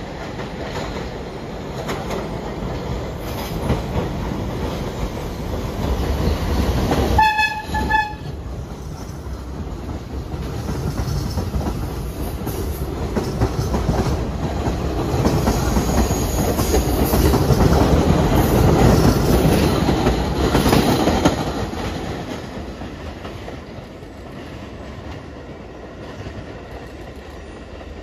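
Budd R32 subway train approaching and running through the station without stopping. It sounds two short horn blasts about seven seconds in, then passes with wheels clattering over the rail joints, loudest past the midpoint and fading as it moves away.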